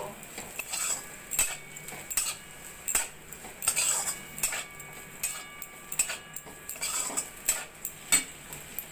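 Steel spatula scraping and knocking against a metal kadai as fried bitter gourd and potato pieces are stirred and tossed with dry spices, in irregular strokes about once or twice a second, some followed by a faint metallic ring.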